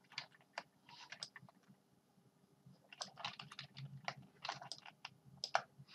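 Irregular clicks and taps of a computer keyboard and mouse: a few in the first second or so, a pause, then a busier run of clicks through the second half.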